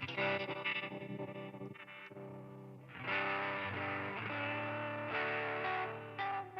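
Electric guitar with P-90 pickups played through a Chase Bliss Generation Loss MKII tape-emulation pedal: chords ringing out, softer for a moment, then louder from about three seconds in.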